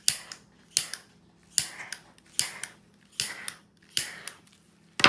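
Handheld butane torch fired in short bursts, a click and a brief hiss about every 0.8 seconds, as it is passed over mixed resin to pop bubbles.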